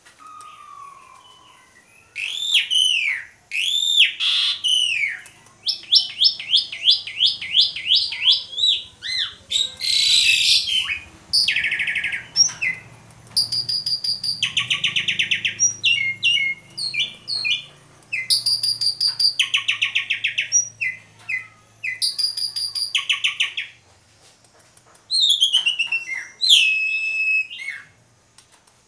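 Asian pied starling (jalak suren) singing a long, varied song: arching whistled notes, runs of fast repeated notes, and harsh rasping rattles, broken by short pauses.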